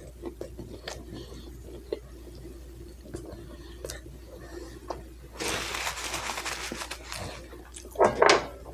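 Close-miked chewing of a fried onion ring: soft wet mouth clicks and crunches. About five and a half seconds in comes a longer hissing noise, and near the end a short louder sound.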